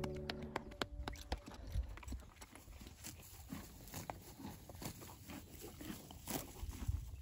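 A horse grazing close by, tearing and chewing grass in faint, irregular crunches.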